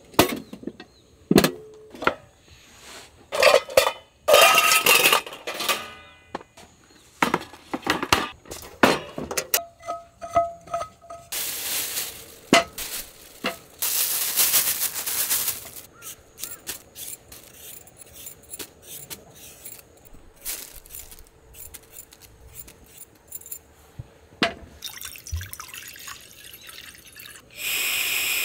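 Dishes and camp cookware being handled: scattered clinks and knocks, a brief ringing clink about ten seconds in, and two longer stretches of rustling.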